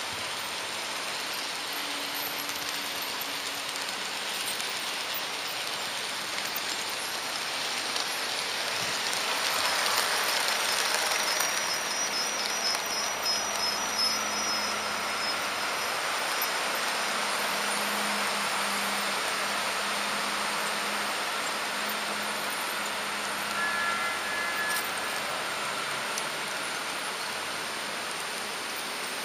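Märklin HO model trains running on the layout's track: a steady rolling hiss and rumble of small wheels on metal rails with a faint motor hum, growing louder around ten to fifteen seconds in as a second train passes alongside.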